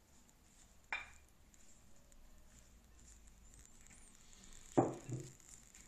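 Wooden spoon pushing lettuce off a plate into a glass salad bowl: faint handling, a sharp tap about a second in, then two louder knocks near the end.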